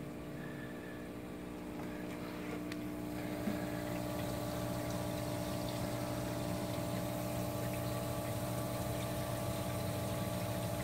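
Reef aquarium sump equipment running: a steady electric hum from the return pump under rushing, churning water in a sump foamy with microbubbles. The water noise grows louder a few seconds in, then holds steady.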